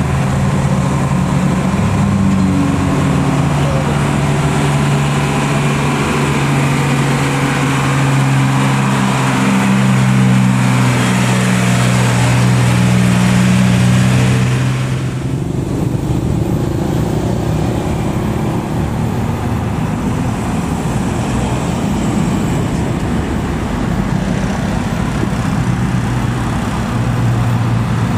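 Diesel engine of a box truck pulling uphill, a steady deep drone that grows louder as the truck passes close. About halfway through it breaks off suddenly into a rougher road and traffic rumble. Near the end a second diesel truck's engine comes up strongly.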